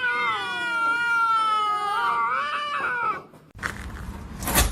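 A cat's long, drawn-out yowl lasting about three seconds, followed after a short pause by a burst of hissing noise near the end.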